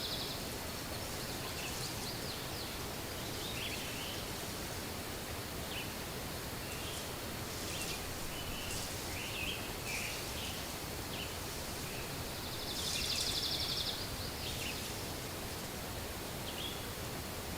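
Woodland ambience of scattered songbird chirps over a steady hiss, with one high, fast trilled song lasting about a second and a half past the middle.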